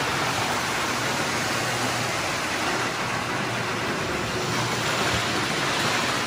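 Toy trains running around a store's post-war layout, giving a steady, even whir with no pauses.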